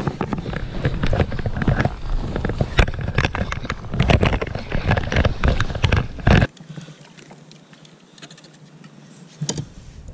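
Dense, irregular knocking and rustling of gloved hands working a fishing reel right against the camera while a fish is fought from a kayak. It cuts off suddenly about six and a half seconds in, leaving a much quieter wash with one short knock near the end.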